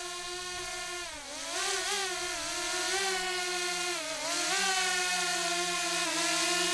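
Quadcopter drone's propellers and motors humming steadily in a pitched whine. The pitch dips and recovers about a second in and again about four seconds in, then creeps slightly higher near the end as the motors change speed.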